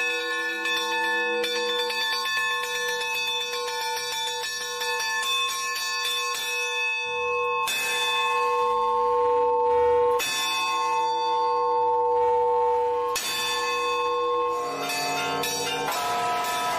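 Several church bells chimed by hand, ringers pulling the clappers against the stationary hanging bells. For about the first seven seconds the strikes come fast; after that come fewer, heavier strokes whose ringing tones hold and overlap.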